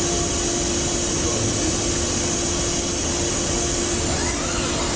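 Automated electric-motor stator assembly machinery running: a steady hiss and a constant hum, with a short rising whine near the end.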